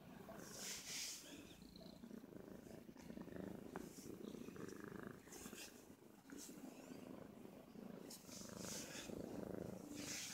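Domestic grey cat purring softly and continuously while being stroked, with a few brief rustles of a hand rubbing its fur.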